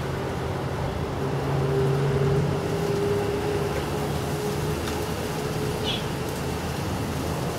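A steady low mechanical hum, like a distant engine, swelling about two seconds in and easing after about five seconds, with one brief high chirp near six seconds.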